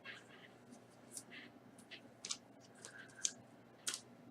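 Faint scattered clicks and short rustles of trading cards and plastic card sleeves being handled, a tick or scrape every half second or so.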